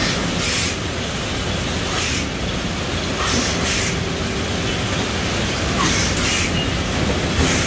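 Automatic apple tray-packing machine running: a steady mechanical rumble from the conveyor and rollers, with short sharp hisses of air every second or two, some in pairs, as its pneumatic suction cups pick up and release apples.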